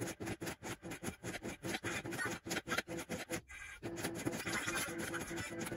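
Pachislot machine in play, its reels spinning and being stopped, giving rapid rhythmic pulsing sounds about six a second with a brief break about three and a half seconds in.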